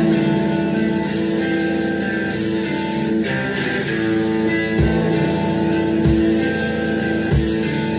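Rock music with guitar and drums playing. From about five seconds in, a bass drum hits about every second and a quarter.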